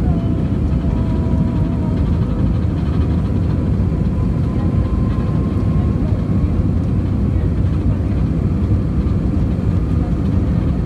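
Cabin noise of an Airbus A320 rolling on the ground: a steady low rumble of the jet engines and the moving airframe, with a faint whine.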